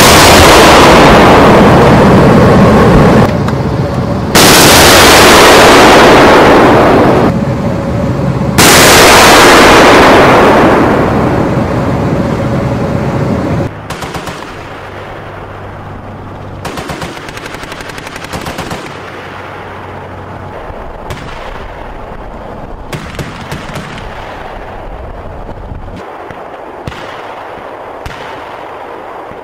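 Gunfire: three very loud, long bursts of firing in the first half, each with a fading tail. After that it is quieter, with scattered sharp shots over a steady low vehicle rumble.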